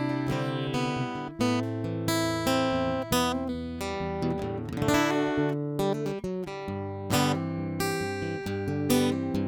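An all-mahogany JCraft Troubadour Taka Mini travel-size acoustic guitar being played, with chords strummed one after another and left ringing.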